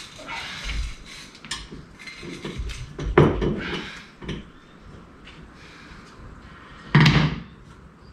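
Screwdriver scraping and clinking against metal engine parts as it is worked around a joint to loosen it, with louder knocks about three seconds in and about seven seconds in.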